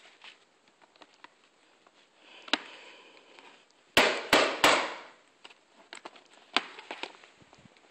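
Three quick, sharp slaps of a hand on the top of a box, about four seconds in, with softer handling rustles and clicks around them.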